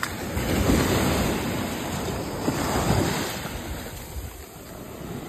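Surf washing in over the shallows of a sandy beach: a rushing wash that comes up suddenly, swells through the first few seconds and eases off near the end.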